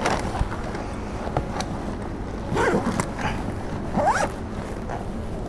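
Zipper on an insulated food-delivery bag being pulled shut in two quick strokes, with the crackle of paper takeaway bags being packed inside it.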